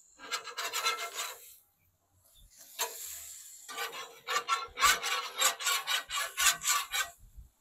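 Marinated chicken breasts sizzling and scraping on hot grill grates as they are lifted and turned. The rough, crackly sound comes in bursts, with a short quiet gap about two seconds in, and the longest burst comes in the second half.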